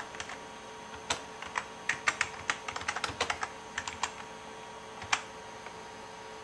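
Typing on a computer keyboard: a run of quick, uneven key clicks that stops a little after five seconds in, over a faint steady hum.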